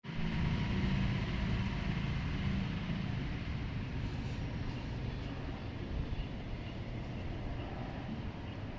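Bosch Aquatak 130 pressure washer running: a steady motor hum under the rush of water, the hum strongest in the first few seconds.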